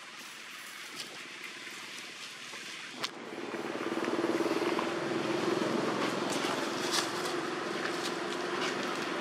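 A motor vehicle's engine, growing louder about three seconds in and then holding a steady hum, with a single sharp click just before it swells.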